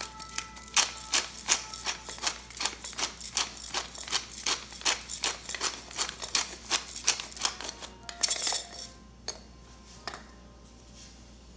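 Glass-jar pepper grinder being twisted, cracking peppercorns in a run of sharp crunching clicks, about four a second. The clicks stop about eight seconds in, followed by a brief louder clatter.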